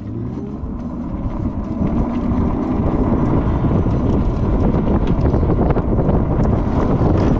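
3000-watt electric motor of a Star-Biker SB6.0 electric chopper scooter whining and rising in pitch as it accelerates hard from a standstill. Wind noise on the microphone grows louder as the speed climbs past 30 km/h.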